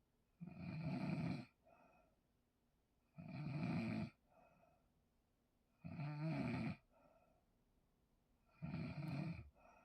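A sleeping person snoring: four loud, rattling snores on the in-breath about every two and a half to three seconds, each followed by a fainter, short out-breath.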